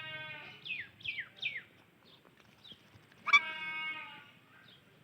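Psittacula parakeets (Indian ringneck and Alexandrine type) calling: a drawn-out nasal squawk, three quick chirps that fall in pitch, then a louder squawk lasting about a second near the middle.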